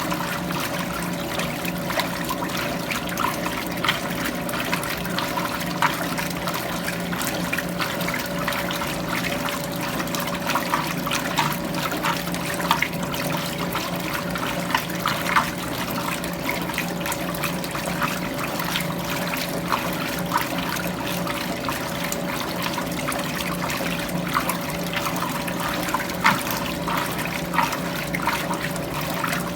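Electrolux Prosdócimo washing machine in its rinse cycle: water splashing and sloshing in the tub over a steady hum.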